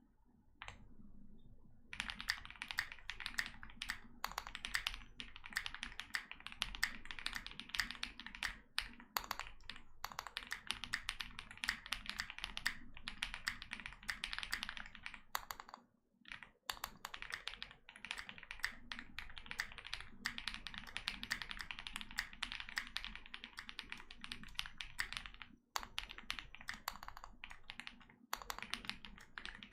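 Typing on a Meletrex Zoom65 mechanical keyboard in an anodized case with a brass weight, fitted with Durock POM switches lubed with Krytox 205g0 and filmed, and Durock V2 stabilizers lubed with Krytox. A dense run of keystrokes starts about two seconds in and breaks off briefly about halfway and twice near the end.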